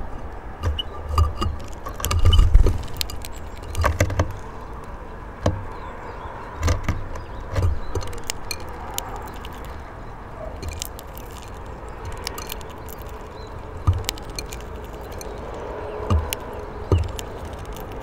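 Finches pecking at seed on a wooden bird feeder: irregular sharp clicks and taps, with dull low thumps bunched in the first half, over steady background noise.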